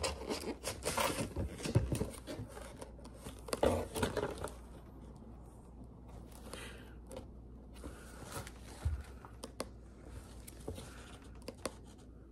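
Paper and plastic wrapping rustling and crinkling as it is handled, busiest in the first four seconds or so, then fainter with scattered small clicks.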